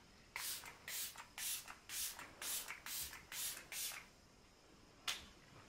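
Beauty Crop Glow Milk Mist setting spray being pumped at the face: about eight quick hissing sprays, about two a second, then a single spray near the end.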